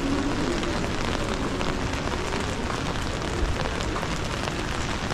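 Steady rain falling on a city street, an even hiss of rainfall with faint scattered drop ticks.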